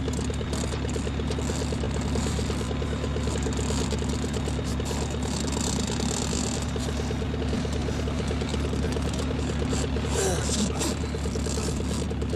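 A Tiger Moth biplane's piston engine running steadily at idle with a fast, even putter over a low drone. A brief gliding sound comes about ten seconds in.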